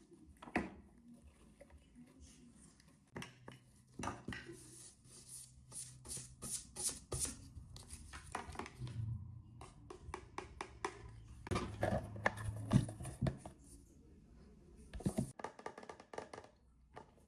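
Hands handling a plastic toy washing machine and its packaging: many short clicks, taps and rustles, some like tearing. A low steady hum runs through the middle.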